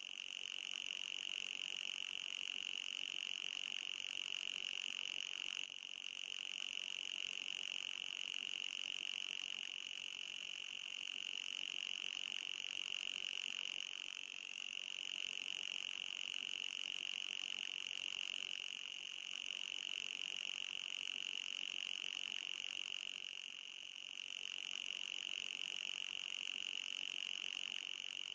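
A steady, shrill, high-pitched electronic tone played as an anti-mosquito and anti-fly repellent sound. It dips briefly and comes back about every nine seconds.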